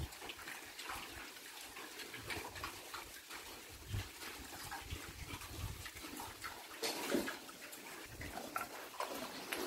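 Piglets rooting and feeding on a littered pen floor: snuffling and chewing with many short scattered crunches and clicks, an occasional grunt, and a louder snort or grunt about seven seconds in.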